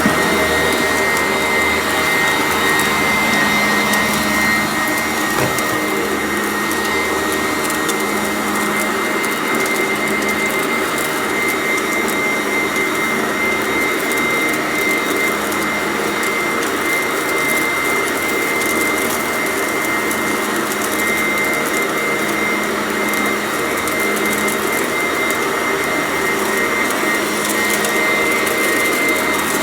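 Sanitaire vacuum cleaner running steadily with a constant motor whine while picking up crunchy debris, its low hum swelling and fading every few seconds.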